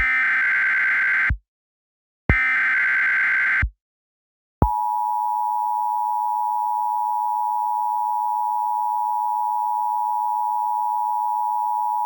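Emergency Alert System SAME header: two harsh, buzzy digital data bursts, each about a second long and a second apart. About four and a half seconds in, the EAS attention signal starts, a steady, shrill two-tone sound that holds without a break. Together these open an emergency alert broadcast.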